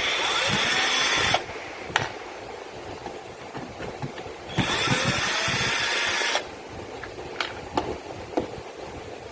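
Cordless power screwdriver motor whining in two runs: one stops about a second and a half in, the other lasts about two seconds in the middle. Sharp clicks and knocks come between and after the runs.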